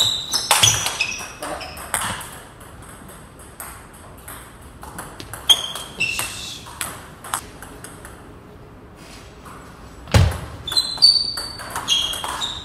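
Table tennis rallies: the ball clicks sharply off the table and the rubber-faced paddles in quick runs of hits, in three separate rallies. A heavy thump comes about ten seconds in.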